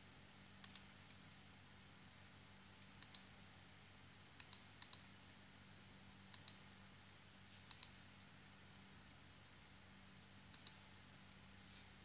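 Mouse button clicks, about seven spread unevenly over several seconds, each a sharp double snap of press and release, over a faint steady hum.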